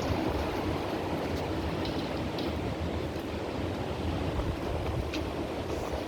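Strong gusty wind rushing and buffeting the microphone with a steady low roar, with a few faint short ticks in it.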